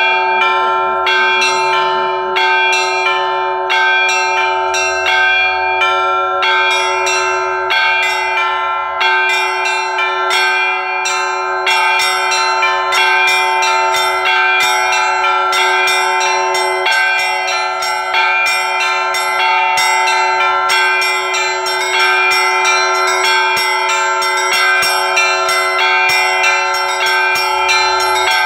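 Russian Orthodox church bells rung as a full peal (zvon): a rapid, dense pattern of strikes on the smaller bells over the steady, lingering ring of larger bells, growing busier about halfway through.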